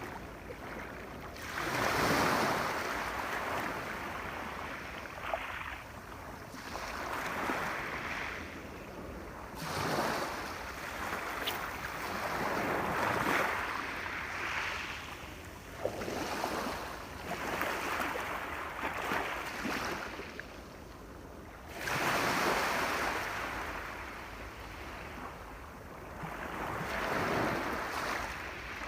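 Sea waves breaking and washing up a shore, coming in repeated surges that swell and fade every few seconds, with the biggest ones near the start and about two-thirds of the way through.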